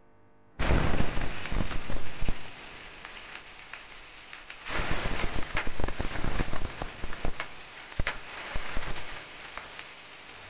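Pieces of raw pork belly hitting hot oil in a wok, sizzling and spattering loudly with sharp crackling pops. The sizzle starts suddenly about half a second in and eases after a couple of seconds. It flares up again about four and a half seconds in as more pieces go into the oil, then dies down near the end.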